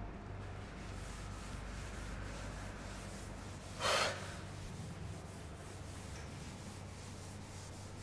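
Cloth duster wiping a chalkboard: faint rubbing over a low steady hum, with one brief louder rush of noise about four seconds in.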